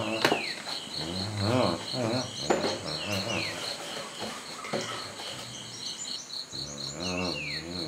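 Insects trilling in an even pulsing rhythm, about five pulses a second, with a bird's short falling whistle three times and a few brief wavering vocal sounds.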